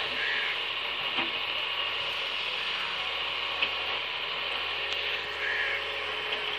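Heavy earth-working machine running steadily, with a few faint clicks and knocks.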